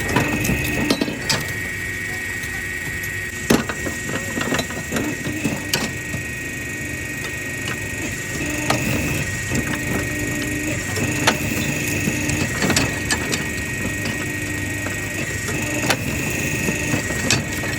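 Factory machinery in a copper scrap recycling plant running with a steady hum, and a pair of tones that switch on and off every second or two. Irregular knocks and clatter of scrap being handled or crushed run over it, with sharp knocks about three and a half seconds in and again near the middle.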